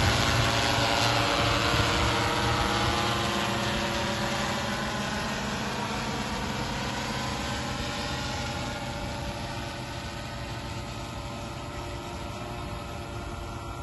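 Multirotor agricultural spray drone's propellers buzzing steadily in flight, fading gradually as it flies away.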